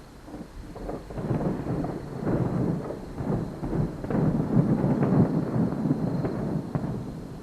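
Fireworks bursting in quick succession, many overlapping booms merging into a rumble that builds to a dense run in the middle and thins out near the end.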